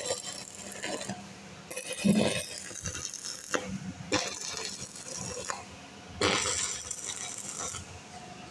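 Stick-welding arc crackling in about four short bursts of a second or two each, as thin steel rods are tack-welded to a steel wheel rim.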